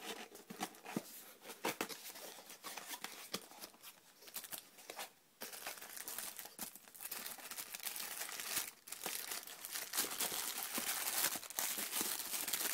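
Crinkling of a thin plastic bag around a lens hood and rustling of a small cardboard box as the box is opened and the wrapped hood is handled and lifted out, louder from about five seconds in.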